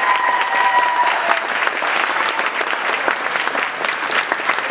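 Audience applauding at the end of a song, many hands clapping steadily. A high held call rises over the clapping in the first second.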